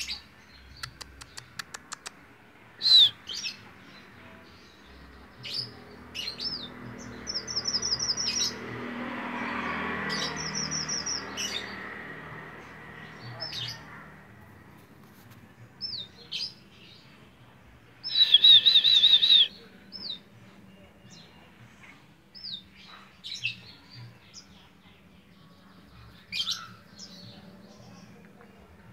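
Caged strawberry finches (red avadavats) chirping: short high calls scattered throughout, with three quick runs of repeated notes, the loudest a little past halfway. A broad background noise swells and fades for a few seconds in the middle.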